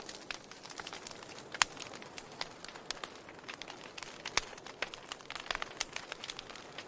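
Wood fire burning, with irregular crackles and pops over a soft hiss; two sharper pops come about one and a half and four and a half seconds in.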